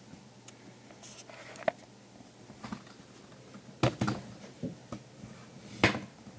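Handling noise as a camera is moved and set down: a few soft knocks and rustles, with two sharper knocks about four seconds in and near the end.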